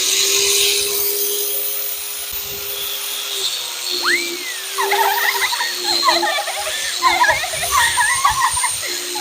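Bench grinder with a buffing wheel running at speed, giving a steady motor hum. From about four seconds in, wavering, squiggling higher tones sound over the hum, and the hum dips briefly several times.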